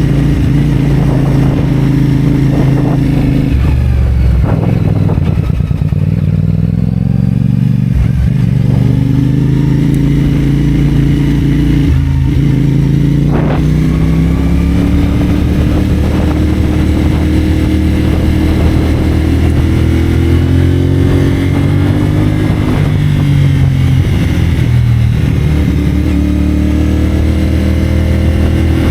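CFMoto 450SR's 449 cc parallel-twin engine through a Yoshimura AT2 slip-on exhaust, riding under way. Its pitch climbs as it pulls, then drops sharply at gear changes several times in the first half and falls again near the end as the bike slows.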